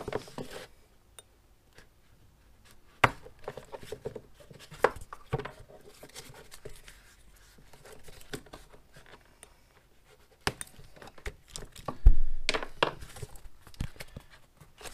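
Hobby knife cutting through the hard rubber straps of a flip-flop, with soft handling noise and a few sharp clicks and knocks as the flip-flop is moved on a wooden workbench; the loudest knock comes near the end.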